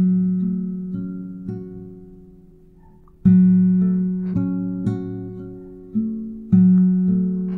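Background music of slow, plucked acoustic guitar notes, each left to ring and fade, with a short lull in the middle.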